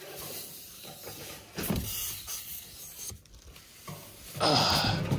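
Packing material rubbing and scraping against a large stainless steel fire pit as it is unpacked: several short scrapes, then a louder, longer one near the end.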